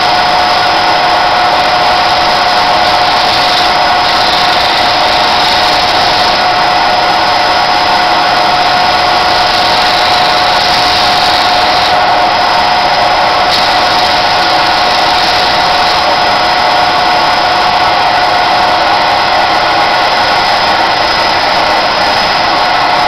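Electric sanding disc running steadily with a constant motor whine and hiss. A few times, for two or three seconds, a higher hiss joins in.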